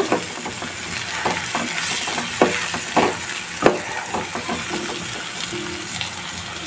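Onion-tomato masala with ground spices sizzling in a pan as it is stirred, with several sharp scrapes or knocks of the utensil against the pan in the first half. Soft background music comes in faintly near the end.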